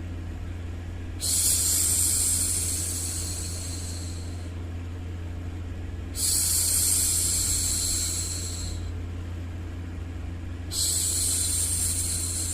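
A woman's long, drawn-out 'shhh' hushing, three times, one about every four and a half seconds, each shush fading out. Under the shushes runs a steady low hum.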